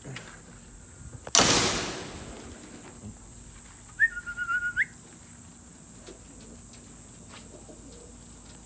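A loud, short rush of noise about a second and a half in, then a single short whistled note about four seconds in that dips, holds and rises at the end, followed by a few faint knocks, over a steady high hiss.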